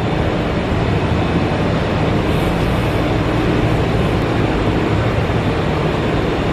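Steady traffic noise with a constant low rumble.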